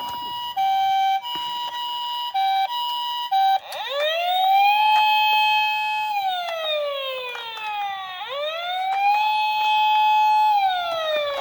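Toy police minicar's electronic siren: short steady beeping tones for the first few seconds, then two police-style wails, each rising quickly, holding a flat tone, then sliding down.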